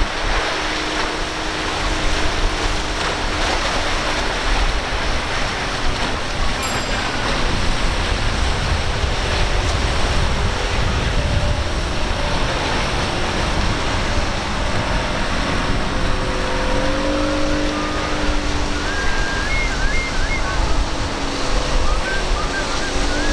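Rushing water and wind from a choppy inlet, with a single Mercury outboard on a Boston Whaler running at speed through the chop. The engine's hum comes through faintly over the steady rush of wind and water.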